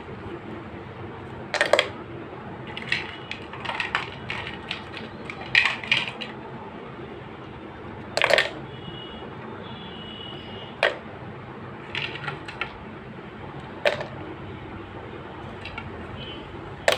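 Ice cubes dropped by hand into a plastic blender jar of milk and ice cream, landing with sharp clinks and clatters, about a dozen at irregular intervals of a second or two.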